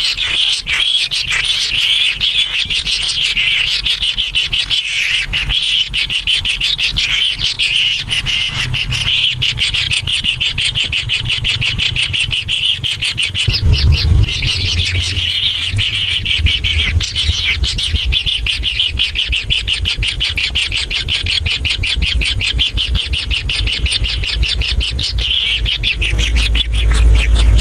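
Birds chirping in a fast, dense, unbroken chatter, with a low rumble coming in about halfway through and again near the end.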